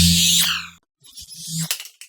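Two Star Trek electronic sci-fi sound effects one after the other. The first is a loud burst of crisscrossing rising and falling sweeps over a low hum and cuts off just under a second in. The second swells with sweeps after a short gap and stops abruptly near the end.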